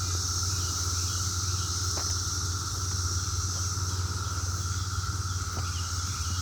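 Chorus of Brood X periodical cicadas in full song: a steady, high-pitched drone with a lower whine beneath it, over a steady low hum.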